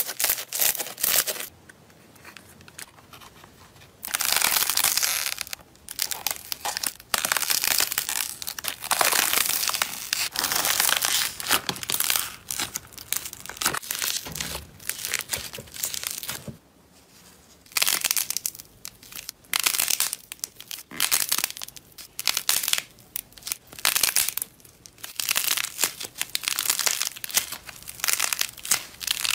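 Slime being squeezed and kneaded by hand: foam-bead slime, then thick, soft slime, squishing and crackling in irregular stop-start bursts with short pauses between handfuls.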